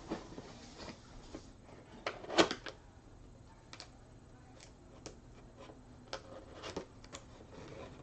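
Cardboard keyboard box being handled: scattered light taps and clicks, the loudest about two and a half seconds in.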